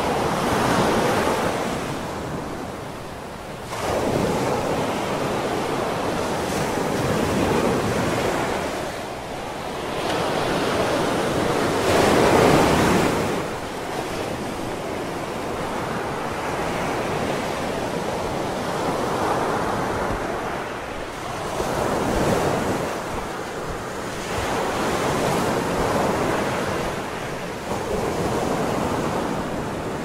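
Ocean surf breaking and washing up a sandy shore, a steady rush of noise that swells and fades every few seconds as each wave comes in, loudest about twelve seconds in.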